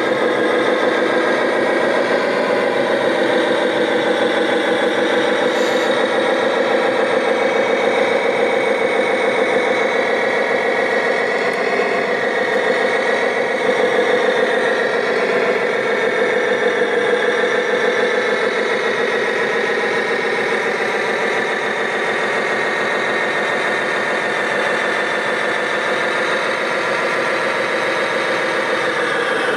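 Diesel engine sound of scale RC construction models, a steady drone at idle from the Liebherr crawler loader as it climbs onto the lowboy trailer. It is evenly loud throughout.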